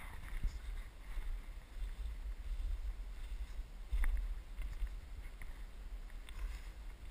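Low rumble of a wheelchair rolling over snow and gravel, with wind buffeting the microphone, small clicks and crunches from the wheels, and a louder bump about four seconds in.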